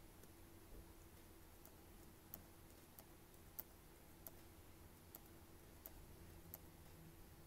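Near silence with faint, evenly spaced clicks, about one every two-thirds of a second, from clicking through fonts on a computer, over a faint steady hum.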